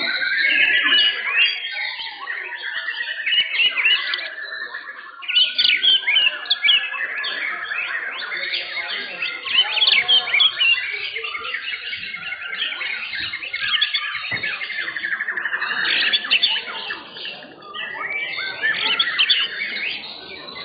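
White-rumped shamas (murai batu) singing: a dense, continuous mix of varied whistles, trills and chirps.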